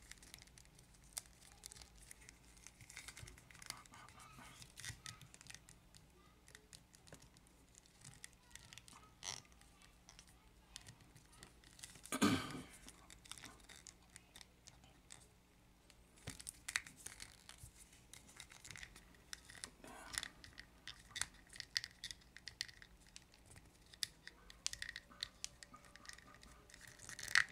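Hands handling and posing a plastic action figure close to the microphone: scattered soft rustles and small plastic clicks as the joints are moved, with one louder rustle about twelve seconds in.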